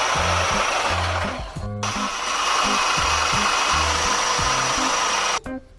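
A loud motor-driven machine running in two bursts, the first about two seconds long and the second about three and a half, with a thin steady whine in it, over background music with a bass line.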